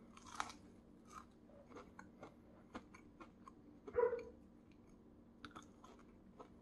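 A person chewing a mouthful of fried, breaded mullet: faint, scattered mouth clicks and soft crunches. A short louder sound comes about four seconds in.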